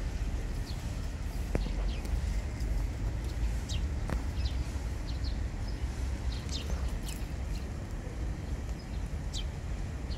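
Outdoor ambience: a steady low rumble with scattered short, high chirps of small birds.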